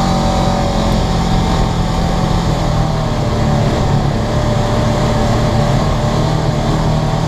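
Polaris RZR 900 side-by-side's twin-cylinder engine running at a steady pace while driving a dirt trail, heard from inside the cab.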